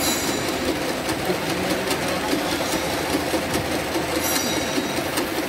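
Paper straw-making machine running: the spiral core-winder's drums, belts and rollers give a steady, fast mechanical clatter as paper strips are wound into a straw.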